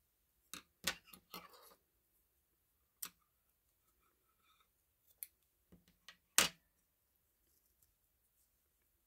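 Scattered light clicks and taps from crocheting by hand with a metal crochet hook over a stone countertop, about a dozen in all, the loudest about six and a half seconds in.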